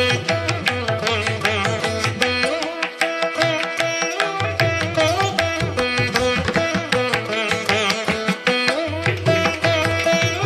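Instrumental background music in an Indian classical style: plucked strings over a steady drone with a hand-drum beat. The low drum part drops out for about a second and a half, around three seconds in.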